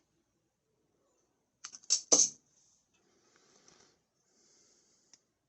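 A few sharp metallic clicks about two seconds in from a Gerber Splice multitool being handled, its small fold-out tools clicking as they are moved. Faint handling rustle follows, then one light click near the end.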